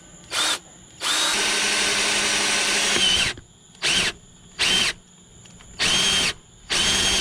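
Power drill with a 9/16-inch spade bit boring through a boat console, run in short pulses with one longer run of about two seconds near the start, as the bit cuts through an aluminum plate behind the console skin.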